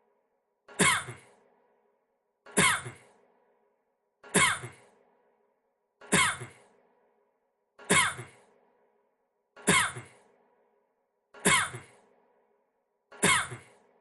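A man's cough repeated on a loop, the same cough about every two seconds, eight times. Each is a sharp burst with a voiced tail that falls in pitch and fades.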